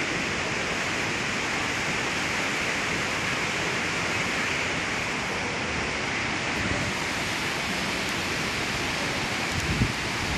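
Fast mountain river whitewater rushing over boulders in a high current: a steady, unbroken rush of water. A few low buffets hit the microphone near the end.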